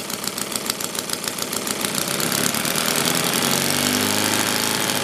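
Home-built twin-cylinder opposed model spark-ignition engine with alternately firing cylinders, running at low speed with evenly spaced firing beats. About two seconds in, the throttle is opened and the engine picks up speed, its pitch rising and the run turning smoother.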